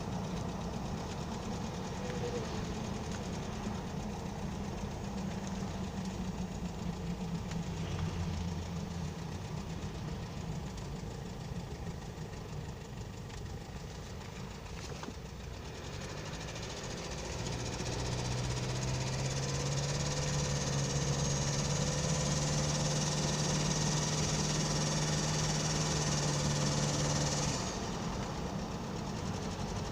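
Toyota 2L-TE four-cylinder turbodiesel running with a foreign knock that the owner cannot identify, after a full rebuild with new injector nozzles. About halfway through the engine is brought up to a higher, steady speed and held there, then drops back to idle near the end.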